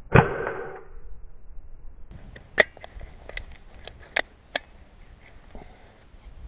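A BSA Scorpion .22 spring-piston air pistol firing: one sharp crack with a short metallic ringing that dies away within a second. About two seconds later come several sharp metallic clicks as the pistol is handled and its barrel broken open to reload.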